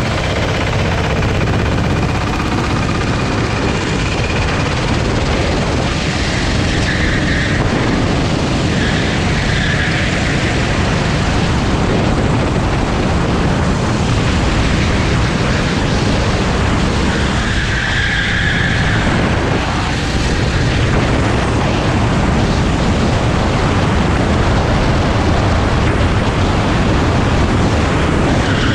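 Honda GX390 single-cylinder four-stroke engine of a Sodikart SR4 rental kart running hard under racing load, heard onboard, with a few short tyre squeals in the corners.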